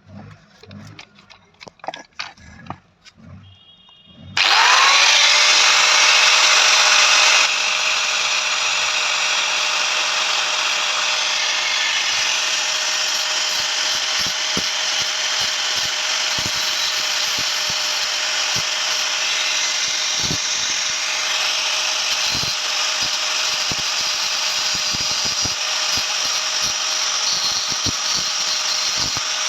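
A few handling clicks, then an electric power tool switches on about four seconds in, its motor whine rising briefly, and runs steadily with a loud hiss, working the steel of an old bearing.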